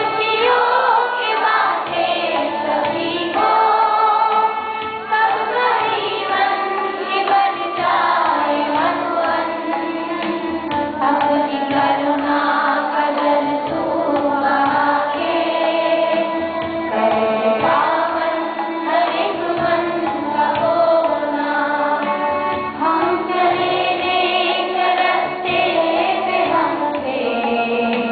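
A woman sings a devotional prayer song into a microphone, accompanying herself on an electronic keyboard, with a group of children singing along.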